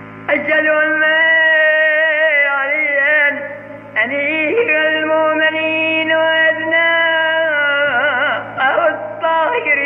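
An elderly man's unaccompanied voice chanting an Islamic devotional recitation in long held notes with wavering ornaments, breaking for breath about three and a half seconds in and again near eight seconds, where the line turns into quick ornamented runs.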